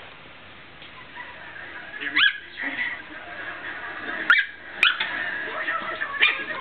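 Yorkshire terrier puppy giving four short, high-pitched yips: one about two seconds in, two close together around the four-to-five-second mark, and one more after six seconds.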